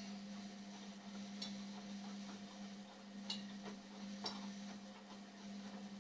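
Indesit washing machine turning its drum during the wash phase of its Sport programme. Its motor gives a steady hum, and three sharp clicks sound through it.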